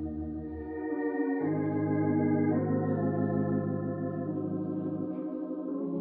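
Organ playing a slow hymn in held chords that change every second or two. The recording is an old 1949 radio broadcast and has little treble.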